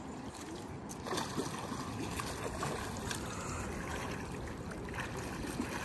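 Steady rush of water with small splashes as a child wades through shallow lake water.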